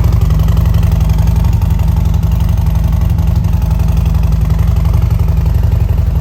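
Harley-Davidson Road Glide ST's V-twin engine idling steadily through its exhaust, with a deep, even, fast pulse.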